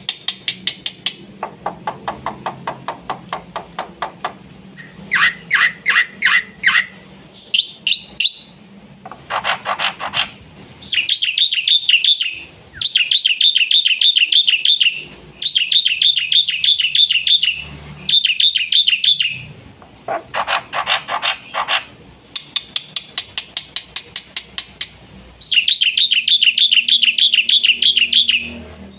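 Black-winged starling (jalak putih) singing a fast, varied song of rapidly repeated sharp notes and high warbling trills. The phrases come in bursts of one to three seconds with short pauses between them.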